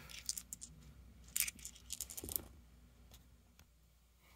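Small metal screws and bolts clinking together as they are sorted by hand: light clicks in a few short clusters.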